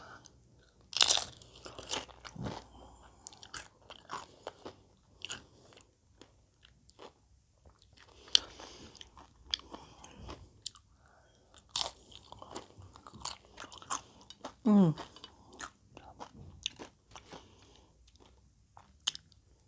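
Crunching and chewing of homemade nachos, tortilla chips loaded with salsa and sour cream: irregular crisp crunches, the loudest about a second in. About fifteen seconds in there is a brief hum from the eater, falling in pitch.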